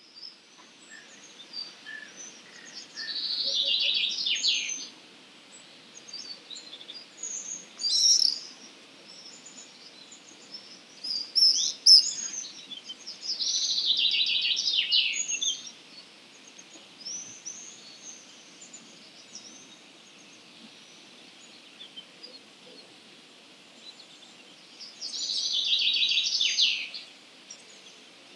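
Dawn chorus of wild songbirds. One bird sings a loud, rapid trilled phrase of about two seconds three times, roughly eleven seconds apart, over scattered short chirps and whistles from other birds.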